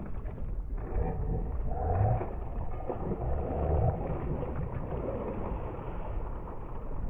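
Muffled, steady low rumble aboard a small fishing boat at sea.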